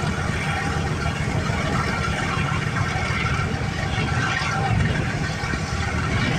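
Wind buffeting the microphone: a steady, choppy low rumble with a rustling hiss over it.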